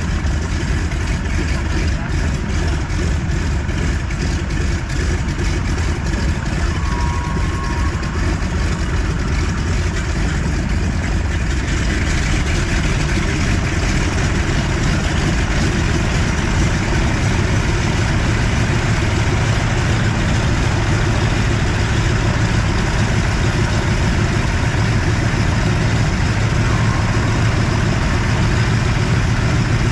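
Ford Tri-Motor's three radial engines running steadily on the ground, getting louder and rougher about twelve seconds in as the throttles open and the plane starts to taxi.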